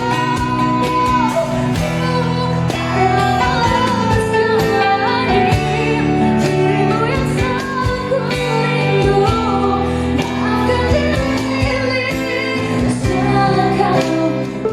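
A song: a singer's voice over a band, with percussion hits throughout.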